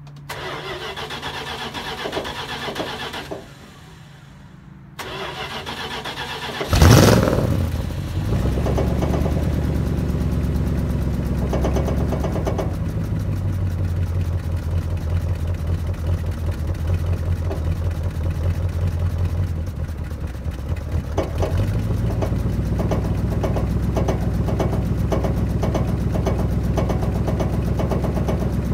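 1966 Plymouth Barracuda's 318 V8 with a two-barrel carburettor being cold-started after sitting a couple of days: the starter cranks, pauses, cranks again, and the engine catches about seven seconds in with a loud rev. It then runs steadily, the idle dipping and picking back up about twenty seconds in.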